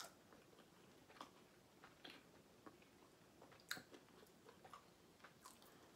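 Faint chewing with soft, scattered mouth clicks, a little louder about two thirds of the way in; otherwise near silence.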